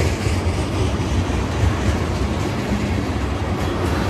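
Freight train cars rolling past at speed, a steady rumble of steel wheels on rail, with wheel clicks over rail joints coming back near the end.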